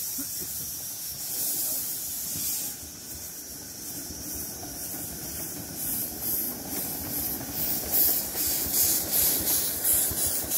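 Miniature steam locomotive hauling passenger cars, hissing steam with the beat of its exhaust, growing louder as it draws close near the end.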